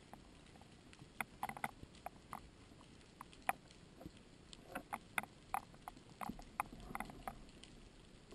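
Underwater sound picked up by a camera in its housing: irregular sharp clicks and ticks, a few a second, over a faint steady hiss, growing busier in the second half.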